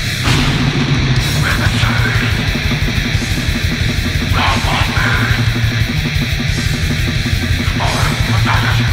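Black/death metal band playing: heavily distorted electric guitars over drums in a raw demo recording, loud and unbroken.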